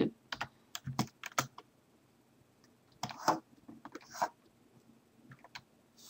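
Computer keyboard keys clicking in scattered, irregular single presses.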